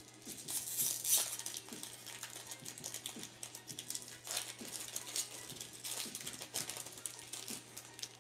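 Trading-card pack wrapper being torn and peeled open by hand, crinkling and rustling, loudest about a second in and then lighter, scattered crackles.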